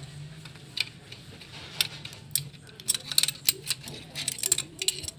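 Small steel parts clicking and clinking as a presser-foot lifter rod is worked out of the mechanism of an opened high-speed industrial sewing machine. The sharp clicks come in quick clusters, thickest in the second half, over a steady low hum.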